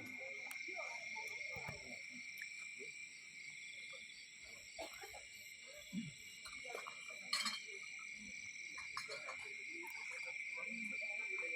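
Faint, steady high-pitched chorus of insects, with scattered soft calls beneath it and a brief click about seven seconds in.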